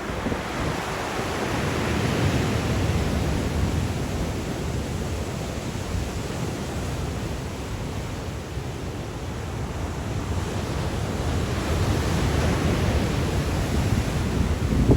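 Black Sea surf in a strong wind: waves breaking and washing in, swelling about two seconds in and again near the end, with a quieter lull between. Wind buffets the microphone underneath.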